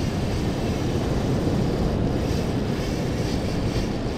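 Wind buffeting the microphone over the rush of breaking surf, a steady low rumble.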